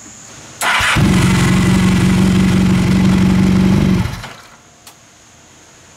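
Honda VF1000 V4 motorcycle engine starting abruptly, running steadily for about three seconds, then shut off.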